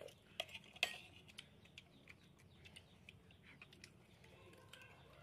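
Metal spoons clinking and scraping against ceramic plates and bowls during a meal: a few sharp clinks in the first second, the loudest just under a second in, then faint scattered ticks.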